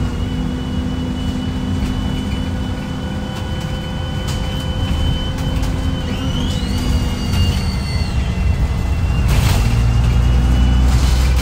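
Cummins ISBe220-31 diesel engine of an ADL Super Pointer Dart bus running under way, with a steady high whine over the rumble, in an engine the uploader calls trashed. Around the middle a second whine rises, holds and falls away, two short bursts of air hiss come about nine seconds in and at the very end, and the engine grows louder near the end.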